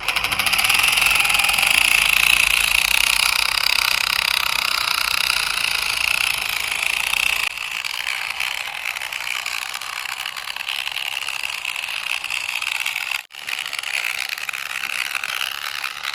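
A radio-controlled toy truck running: the steady, high whirring of its small electric motor and gears. It drops in level about halfway through and breaks off briefly near the end before starting again.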